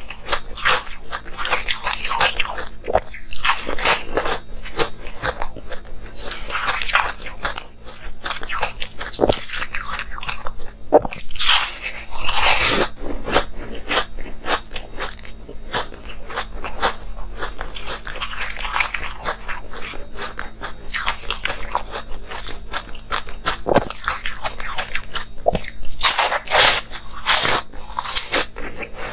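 Close-miked crunching and chewing of frosty pink ice pieces: irregular crackling bites throughout, with heavier bursts of crunching several times.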